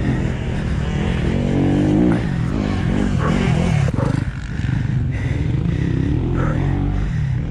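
Motocross bike engine running, its revs rising and falling over the first few seconds. After a sudden change about four seconds in, a steadier engine note carries on.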